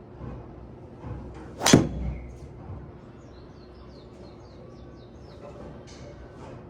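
Titleist TSR4 golf driver striking a ball: one sharp, loud crack of club on ball about a second and a half in.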